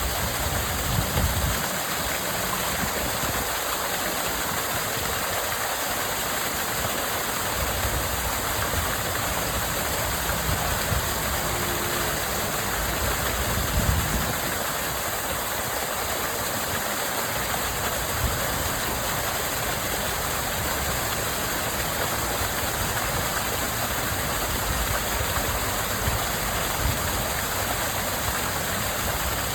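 Water rushing steadily down a waterfall: an even hiss with an uneven low rumble beneath it.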